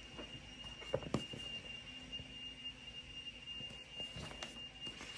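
A faint, steady high-pitched whine, with a few soft knocks and rustles about a second in as a hardcover picture book is handled and opened.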